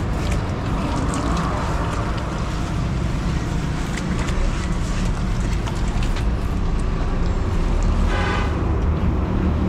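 Steady low engine rumble, with light splashes and drips of water poured from a plastic bottle over an inflated truck inner tube.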